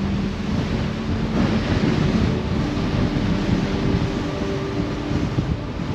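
Rough sea rushing and breaking along the side of a moving ship, mixed with strong wind buffeting the microphone.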